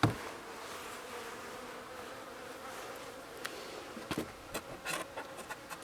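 Honeybees buzzing around the hive in a faint steady hum. A sharp knock comes right at the start, and a few short clicks and taps follow in the second half.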